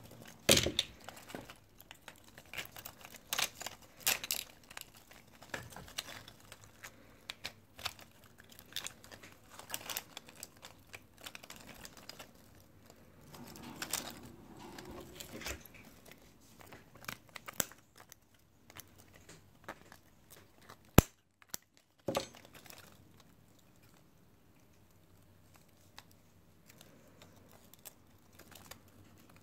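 Irregular crinkling, crackling and clicking handling noises, with one sharp click about two-thirds of the way through, after which the sound drops to a faint background.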